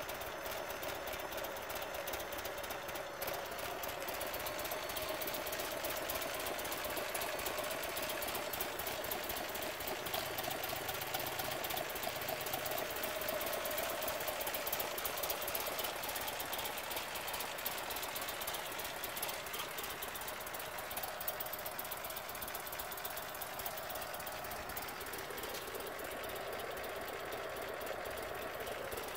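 Buell Firebolt XB12R's air-cooled V-twin engine idling steadily, with a fast, even pulse.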